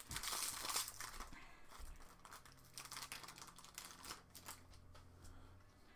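Foil wrapper of a Magic: The Gathering booster pack torn open with a loud crinkling in the first second. Then a run of light clicks and rustles as the cards inside are flipped through.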